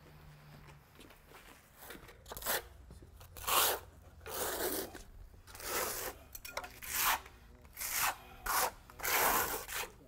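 Hand trowel spreading and smoothing wet cement overlay along the edge of a concrete slab: repeated scraping strokes, about one a second, starting about two seconds in.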